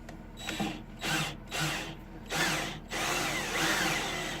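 Cordless drill driving a brass threaded insert into a wooden sanding arbor. It runs in four short bursts, then a longer run from about three seconds in, labouring because the insert is going in stiffly.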